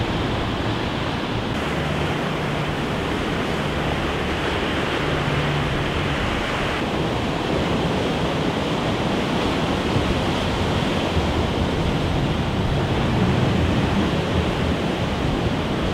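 Ocean surf and wind: a steady rushing noise of waves breaking on the rocky shore.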